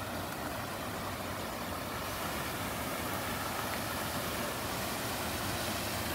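Muddy floodwater running fast down a swollen creek after heavy rain: a steady rushing noise that grows a little louder about two seconds in.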